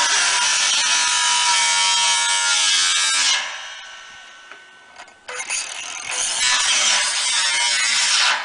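Angle grinder with a cut-off disc cutting a slot in steel floor decking, in two passes: the first cut stops about three seconds in and the sound tails off as the disc spins down, and the second cut starts about five seconds in and stops near the end.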